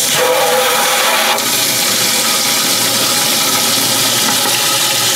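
Tap water running hard through a hose coupling into a plastic water tank, a loud steady rush with a ringing hollow tone from the filling container. A small knock about a second and a half in.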